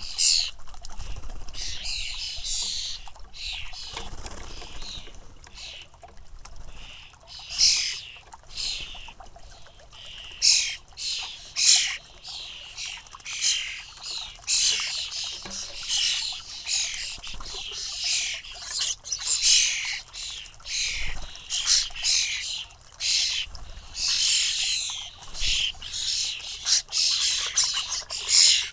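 European starling fledglings calling over and over with harsh, scratchy begging calls, several coming in quick succession and overlapping.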